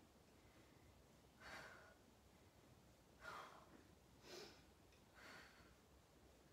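A woman breathing hard from exertion during flutter kicks: four short, forceful breaths at uneven gaps, over faint room hiss.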